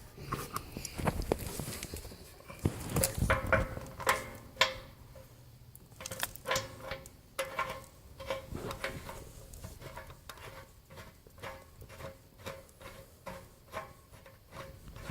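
Knocks and clicks of metal hardware and hand tools being handled while a wheel is fitted onto its axle bolt. In the second half this turns into a run of evenly spaced clicks, about two to three a second.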